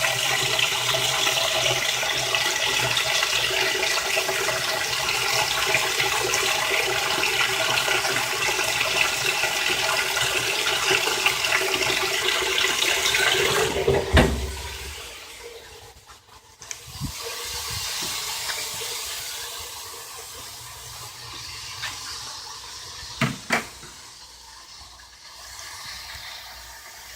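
Whirlpool Direct Drive top-loading washer filling with hot water: a steady rush of water pouring into the wash basket. About halfway through it cuts off suddenly with a thump, leaving a much quieter background with a few short clicks.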